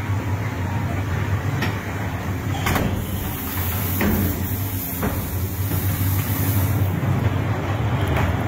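Train sound effect: a steady low rumble with a few sharp clanks and a long hiss starting about three seconds in and stopping about four seconds later.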